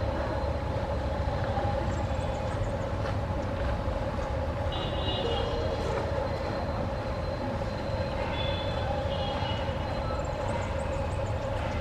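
Train running on the line: a steady low rumble with an even hum that holds unchanged throughout. Brief high-pitched tones come through about five seconds in and again around eight to ten seconds.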